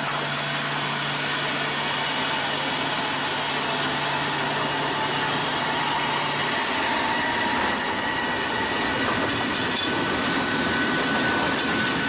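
Automatic log sawmill running, its saw cutting through a log: a steady, loud machine noise over a low motor hum that drops out about halfway through.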